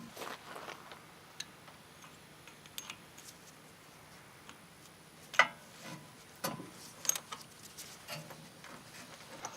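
Scattered light metallic clicks and taps of a wrench and socket being worked onto and around the engine's spark plug to unscrew it, with the loudest click about five seconds in.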